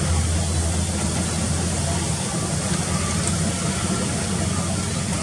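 A large engine running steadily, with an even low hum over a noisy hiss.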